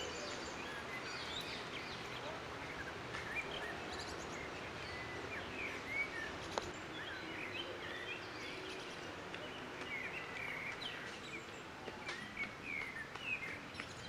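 Woodland ambience: many short bird chirps and calls scattered over a steady outdoor hiss.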